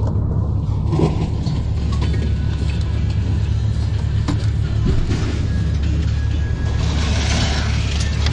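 Ford pickup truck's engine running steadily, heard from inside the cab. A hiss comes in near the end.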